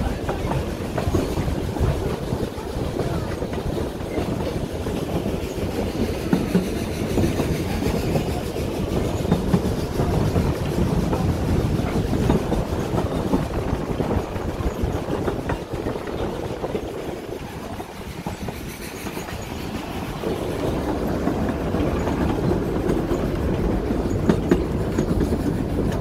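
Narrow-gauge heritage railway carriage running along the track, heard from on board: a steady rumble of wheels on rail with irregular clicks and clacks over the joints. It eases a little about two-thirds of the way through, then picks up again.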